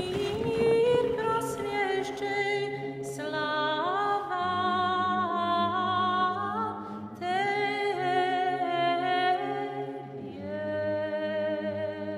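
Background vocal music: a choir singing a cappella in held notes over a steady low note.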